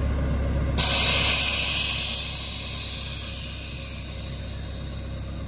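Air-ride suspension on a Chevy S10 pickup dumping air: a loud hiss of air venting from the air bags through the valve manifold starts suddenly about a second in, then slowly fades as the truck lowers to lay out on the ground.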